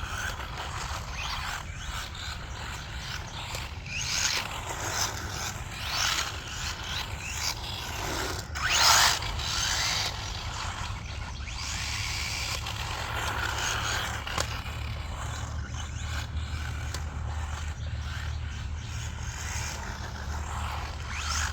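Hospeed HS16-81 1/16 short course truck running a speed pass on a 3S LiPo: its 3800kv brushless motor whines up in pitch as it accelerates, over a steady rattle of drivetrain and tyres. The loudest rise comes about eight to nine seconds in, with smaller rising whines around four and six seconds in.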